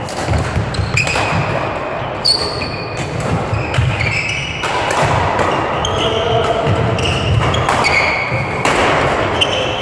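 Badminton doubles rally echoing in a large sports hall: sharp racket strikes on the shuttlecock, short high squeaks of court shoes on the floor, and the thuds of players' footsteps.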